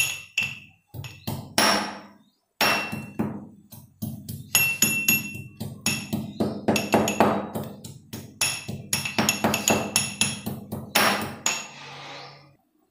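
Mortar and pestle pounding ginger, cardamom and clove, a run of irregular ringing strikes about two to three a second.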